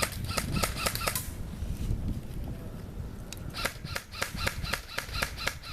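Airsoft electric guns firing rapid single shots, each a sharp mechanical snap: a short string at the start, then a longer string of about a dozen shots from about three and a half seconds in.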